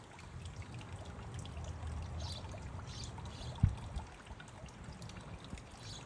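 Water trickling and pouring from a small birdbath fountain bubbler, with light splashing as a goldfinch bathes. A single low thump about three and a half seconds in.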